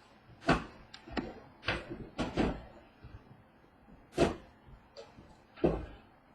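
A run of short, irregular knocks and scuffs, about nine in six seconds, from items being handled and set down on a tabletop.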